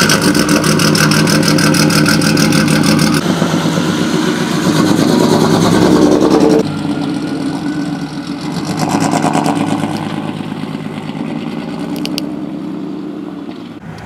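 1992 Mercedes 190E 2.6's inline-six running through a loud aftermarket exhaust, an engine with a known misfire. It runs loudly at first, then drops sharply about six and a half seconds in and fades lower as the car pulls away.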